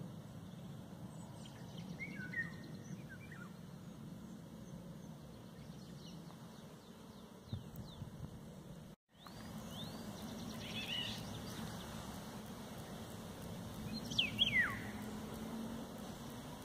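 Eurasian golden oriole calling: a few scattered short calls, the loudest a call that falls steeply in pitch about fourteen seconds in, over a faint steady low hum. The sound cuts out completely for a moment about nine seconds in.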